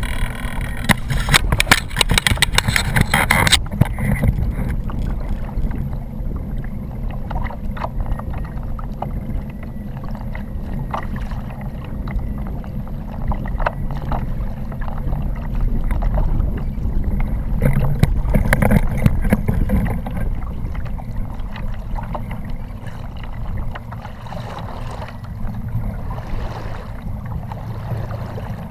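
Choppy water lapping against the plastic hull of a Feelfree Lure 11.5 fishing kayak under a steady low rumble of wind on the microphone, with a flurry of sharp knocks and rattles in the first few seconds and occasional clicks after.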